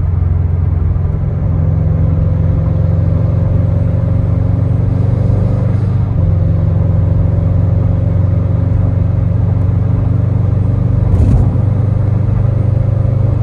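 2017 Subaru WRX STI's turbocharged flat-four running as the car drives along: a steady low rumble of engine and road noise. A faint higher tone climbs slowly, drops back about six seconds in, then holds steady. There is a brief thump about eleven seconds in.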